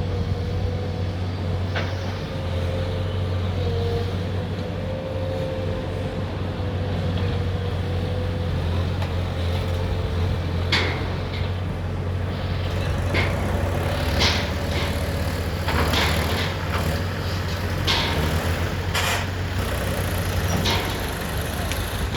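Backhoe loader's diesel engine running steadily, with a held whine through the first half. From about halfway on, a series of short, sharp noises cuts in over the engine.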